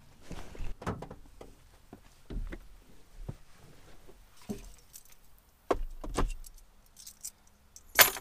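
Someone settling into a pickup truck's driver's seat: rustling with a series of knocks and thumps, then keys jangling near the end and a sharp clack just before it ends.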